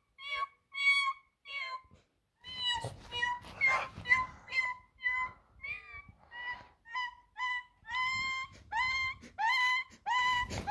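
French bulldog whining in a long run of short, high-pitched cries, about two a second, with a brief pause about two seconds in. Soft rustling of movement under the cries from then on.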